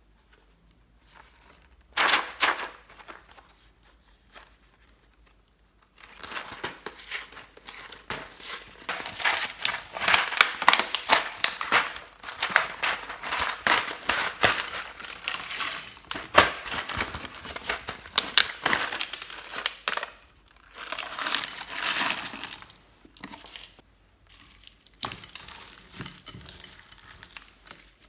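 Hands squeezing and stretching slime, a dense run of crackling, popping clicks. A short burst comes about two seconds in, then near-continuous crackling from about six seconds on, with brief pauses.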